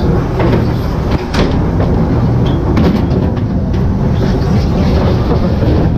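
Ghost train car rolling along its track: a loud, steady rumble and rattle of the wheels, with a couple of sharp knocks about a second in and another near the middle.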